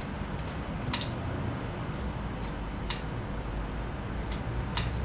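Kitchen scissors snipping raw squid into small pieces: three sharp snips about two seconds apart, with fainter clicks of the blades between them.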